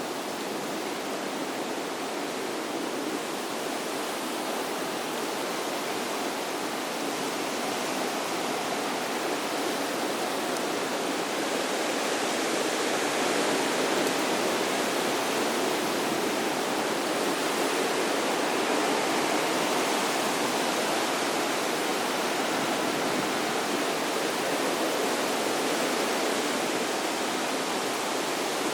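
Running water rushing steadily, like a stream or small cascade, growing a little louder about ten seconds in.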